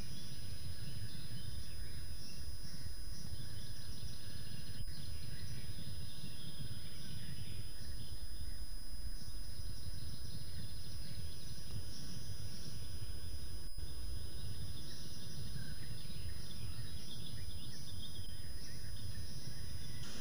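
Outdoor ambience on a webcam microphone: a steady low rumble with faint, distant birdsong chirping throughout. Two brief clicks, about five and fourteen seconds in.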